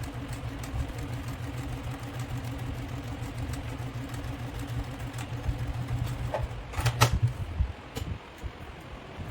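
Electric sewing machine running steadily at a fast, even stitch, sewing a seam. About seven seconds in it stops with a couple of sharp clicks and goes quieter for a moment.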